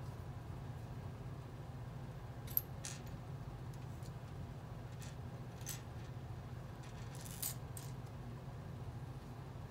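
Plastic LEGO pieces clicking and clattering as they are picked from a loose pile and fitted together by hand: a handful of short, sharp clicks over a steady low hum.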